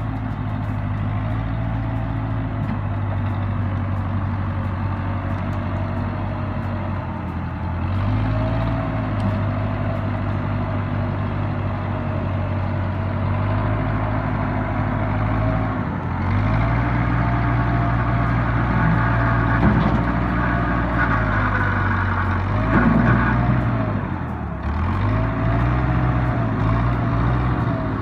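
Backhoe's diesel engine running under load while working, its pitch repeatedly sagging and recovering. It runs louder from about halfway through, with a brief dip near the end.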